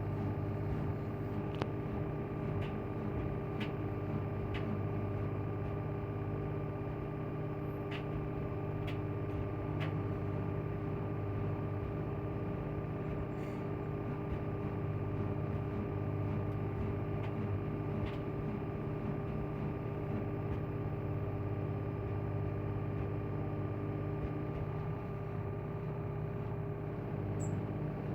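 LG front-loading washing machine in its spin cycle on the cotton programme, set to 1200 rpm: a steady hum from the spinning drum with a constant whine above it. A few faint ticks sound in the first ten seconds or so.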